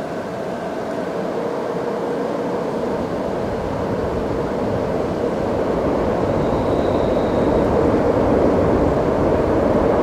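An approaching freight train, an empty car-transporter train coasting downhill, running and growing steadily louder. About seven seconds in there is a brief faint high squeal, the start of wheel flanges riding up on the outer rail in the tight curve.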